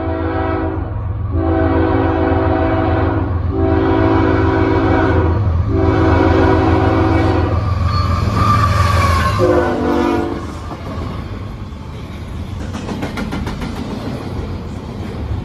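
Diesel freight locomotive's air horn sounding a chord of several notes in a series of long blasts, about two seconds each, over the engine's low rumble. Near the middle the horn's pitch drops as the locomotive passes. After that comes the steady rush and clatter of the train's cars rolling by.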